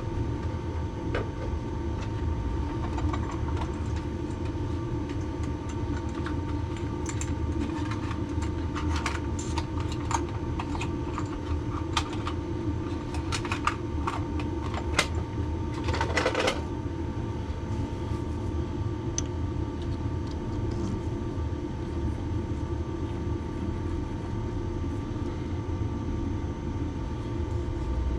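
A workshop machine's electric motor running steadily with a low hum, with light scattered ticks and a brief scraping burst about 16 seconds in.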